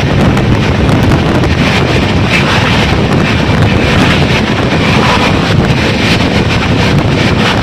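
Wind buffeting the microphone over the running noise of a moving passenger train, steady and loud.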